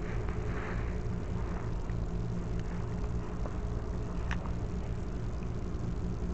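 Steady low droning hum of an idling engine, with a faint sharp click about four seconds in.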